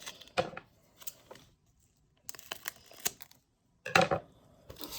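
Scissors cutting open a foil booster pack, with short snips and wrapper rustles, the loudest cluster about four seconds in.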